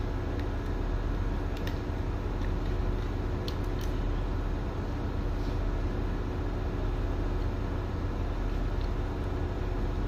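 Steady low machinery drone with a constant hum, over which a few faint metallic clicks come as a screwdriver is worked between the strands of a steel wire rope being spliced.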